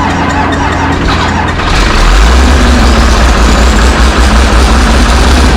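Self-propelled sprayer's diesel engine running on a cold start. It gets louder about two seconds in, and a whine rises in pitch.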